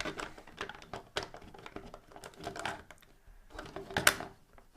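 Irregular clicking and knocking of hard plastic toy parts as an Imaginext figure is pushed into the Green Lantern jet's cockpit, with one sharper knock about four seconds in.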